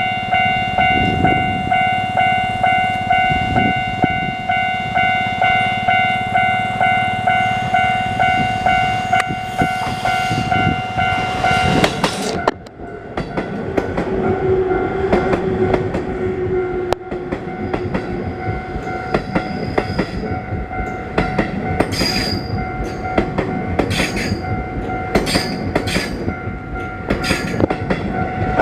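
Japanese level-crossing warning bell ringing in a rapid, even ding-ding. About twelve seconds in, a Limited Express Odoriko train arrives and runs over the crossing, wheels clattering over the rail joints, with the bell still ringing under it.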